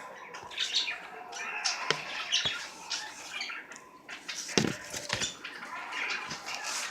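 Video game sound effects from a zombie beat-'em-up: a run of blows, scuffles and short noisy cries, with sharp knocks and the heaviest hit about four and a half seconds in.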